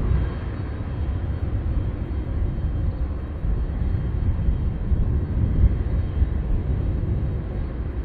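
Boeing 767 jet engines running as the airliner rolls along the runway, mixed with a gusty low rumble of strong wind on the microphone.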